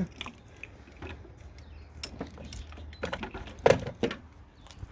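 Scattered clicks and knocks of parts and tools being handled while working in a car's engine bay, with a few louder knocks a little past the middle, over a steady low hum.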